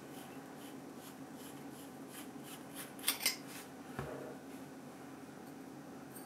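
Faint metal ticking and rubbing as the threaded front ring of an anamorphic scope is unscrewed and handled. Two sharper clicks come just after three seconds, and a soft knock follows about a second later.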